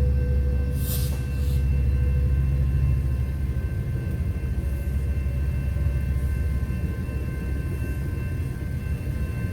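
Metrolink commuter train at a grade crossing: a low rumble that eases after about three seconds, with steady high tones over it and two short hisses about a second in.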